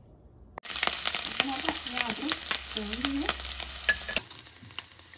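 Chopped ginger deep-frying in hot oil in a kadhai. A loud crackling sizzle with many sharp pops starts suddenly about half a second in, then drops to a quieter, steadier sizzle about four seconds in.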